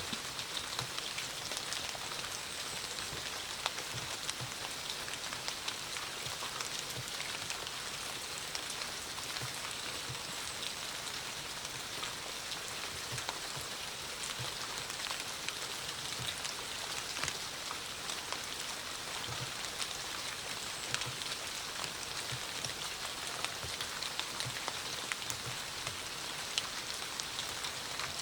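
Steady autumn rainfall: an even hiss of rain with many small drop ticks, and scattered heavier drops landing as short, dull low taps.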